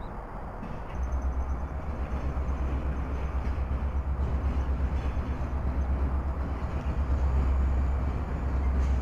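Diesel locomotive of a Union Pacific maintenance-of-way train running as it rolls past, a strong, steady low rumble that starts about a second in.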